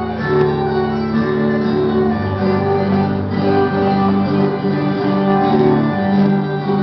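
Instrumental dance music: a melody of held notes over a steady accompaniment at an even level.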